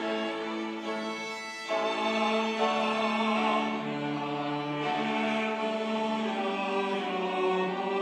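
Church choir singing a sacred anthem in sustained chords with instrumental accompaniment; after a brief dip, a louder new phrase begins about two seconds in.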